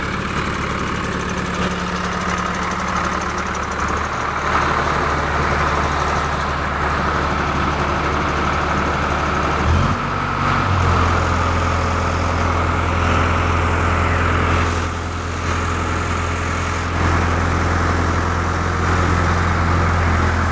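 A vehicle engine running steadily at idle, its note shifting to a lower, stronger hum about ten seconds in.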